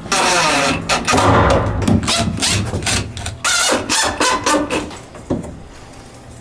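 Cordless drill driving screws through a metal hinge into a wooden window frame, in about five short bursts with the motor's pitch bending as it loads and eases off.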